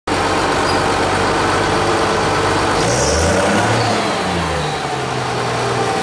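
International 955 tractor's diesel engine running steadily, its pitch rising and then falling back about halfway through as the revs change.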